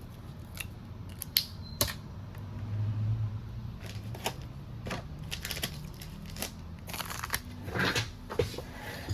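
Small hand tools clicking and tapping irregularly on a smartphone's parts during a battery and charging-port repair, over a steady low hum.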